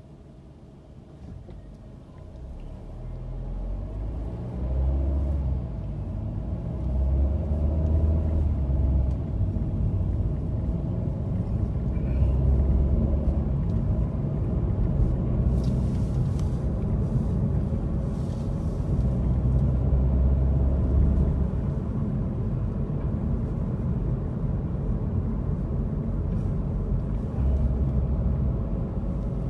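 A car pulling away from a standstill, heard from inside the cabin: engine and road noise rise in pitch and loudness over the first several seconds, then settle into a steady low rumble of tyres and engine while cruising.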